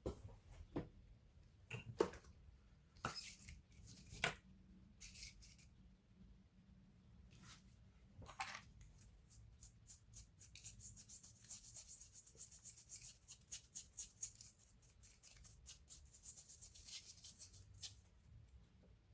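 Faint handling noises from work on an opened laptop: a few sharp clicks and taps of small plastic and metal parts, then, from about halfway through, a long run of rapid fine scratching ticks.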